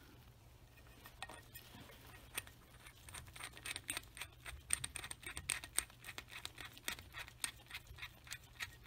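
Faint, irregular clicks and scrapes of gloved hands handling the small metal parts of an oil catch can and its brass fitting. They begin about three seconds in.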